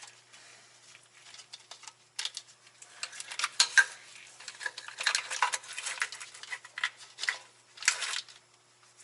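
Irregular clinking, rattling and scraping of metal tools and parts being handled, starting about two seconds in, with the loudest clatter around the middle.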